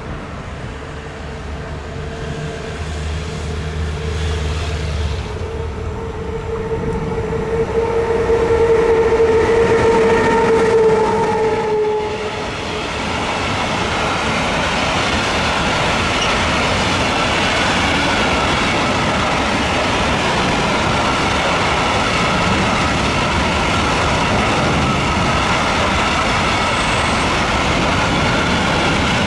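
DB Class 152 electric freight locomotive approaching with a steady whine that grows louder, then passing about twelve seconds in as the whine drops in pitch. A long string of open freight wagons follows, rolling by with a steady rush of wheel noise.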